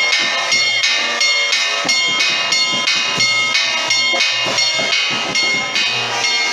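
Metal percussion struck in a steady rhythm, about two to three strikes a second, each leaving a bright, hissy ringing, with soft low thumps now and then.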